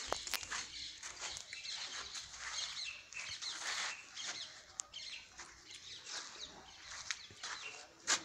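Small birds chirping busily and continuously, with a few sharp clicks near the start, about halfway and at the very end.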